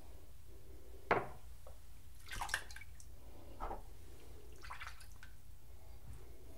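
Water splashing at a bathroom sink in four short splashes, the sharpest about a second in, as the face is wetted between passes of a wet shave.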